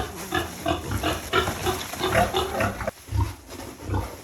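Piglets, a Pakhribas and Large Black cross, squealing and grunting in a rapid series of short calls as they are caught and handled, with a brief lull about three seconds in.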